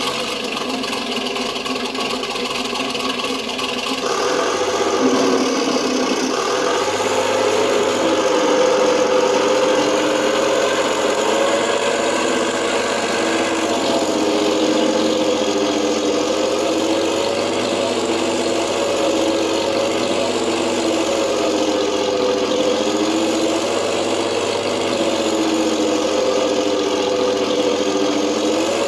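King Tiger tank engine sound effect played by an RC tank sound unit. It runs at idle, picks up revs about four seconds in, then carries on steadily with a slight waver in pitch.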